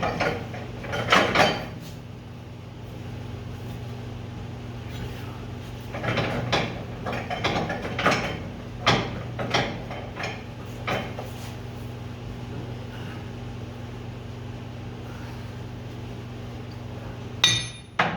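Metal hand tools and hardware clinking and knocking in irregular clusters, with a sharp, ringing metal clink near the end, over a steady low hum.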